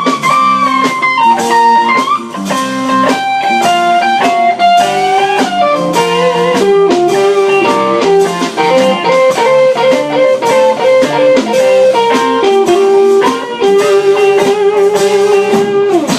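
Blues band playing an instrumental break, with an electric guitar soloing in bent notes and a long held note with vibrato near the end.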